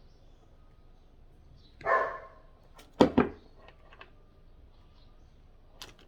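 A dog barking: one bark about two seconds in, then two quick barks about a second later, with a small click near the end.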